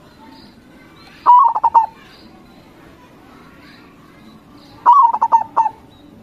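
Zebra dove (perkutut) singing two short phrases of rapid stuttering coo notes, about three and a half seconds apart, over faint background chirping.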